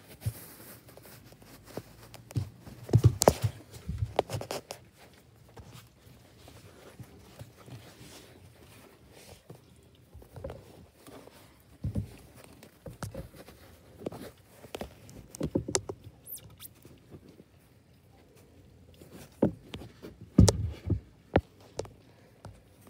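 Irregular knocks, taps and rubbing from a phone being handled against a window frame and glass, with louder thumps about three seconds in and again near the end.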